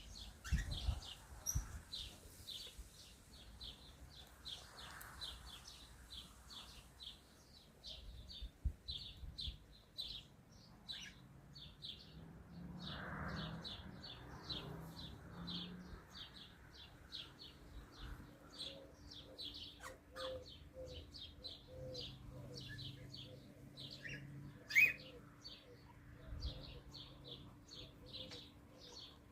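Small pet parrots chirping: a continuous stream of short, high chirps, about three to four a second.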